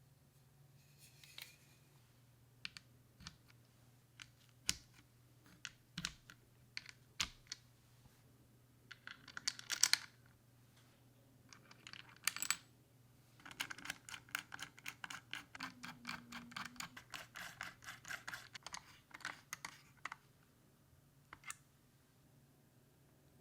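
Hands handling small computer parts: scattered light clicks and taps, two short scraping rustles about ten and twelve seconds in, then about six seconds of rapid light ticking.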